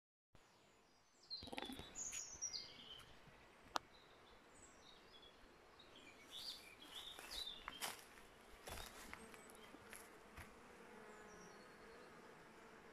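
Faint buzzing of a honeybee swarm flying around the entrance of a bait hive it has just moved into, settling into a steady hum in the second half. Songbirds chirp over it in the first half.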